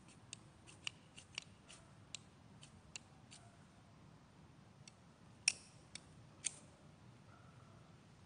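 Short, sharp scraping strokes of a hand-held metal edge worked close to the ground: about a dozen light, quick strokes in the first few seconds, then three louder scrapes a little past halfway.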